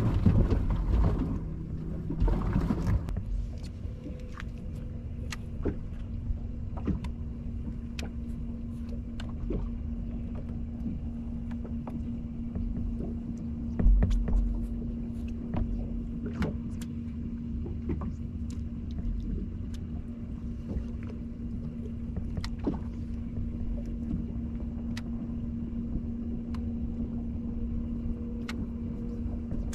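Electric trolling motor on a bass boat humming steadily, over a low rumble of wind and water against the hull. Scattered light clicks run throughout, there is louder rustling in the first few seconds, and a dull thump comes about halfway through.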